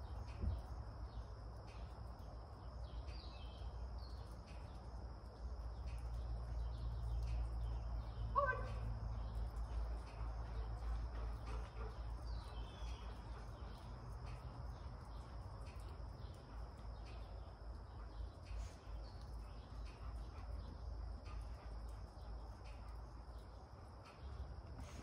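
Arena ambience: a steady low rumble with a faint steady high tone, a few bird chirps, and one short rising call about eight seconds in.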